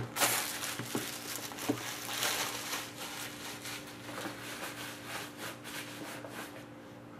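Card box packaging being opened and handled: a run of small rubbing and scraping sounds, busiest near the start and thinning out toward the end, over a faint steady hum.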